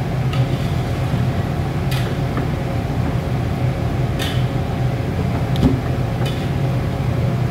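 Metal ladle stirring a thick sauce in a steel wok, scraping and clinking against the pan now and then, over the steady low rumble of the gas stove's burner.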